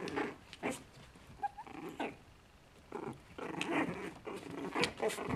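Two five-week-old Chihuahua puppies play-fighting, giving small growls in short, irregular bursts that come thicker in the second half.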